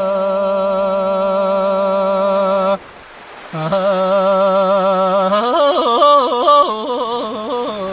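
One voice singing Tibetan folk song, holding a long note with a slight waver. It breaks off for a breath a little under three seconds in, then takes up another long note that climbs into quick ornamented turns near the end.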